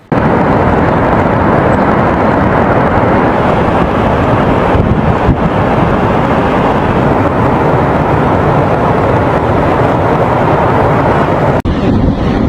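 Steady, loud rushing roar of Niagara Falls' falling water, with wind buffeting the microphone. It breaks off for an instant near the end, then carries on.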